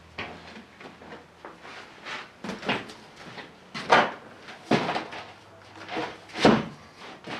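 A series of irregular clunks and knocks from tools and parts being handled during the engine work, with two heavier knocks about four seconds and six and a half seconds in.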